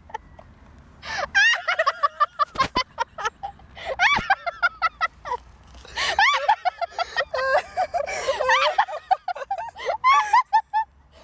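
A woman laughing hard, in long high-pitched fits of rapid pulses broken by short pauses.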